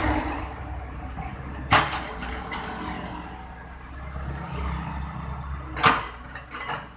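Road traffic running steadily with a low rumble, cut by sharp knocks about two seconds in, near six seconds in and again shortly after.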